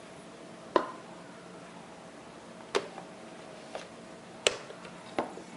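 Lid of a stainless steel spice grinder cup being twisted open and lifted off: about five sharp clicks and knocks, a second or so apart, with the grinder's motor off.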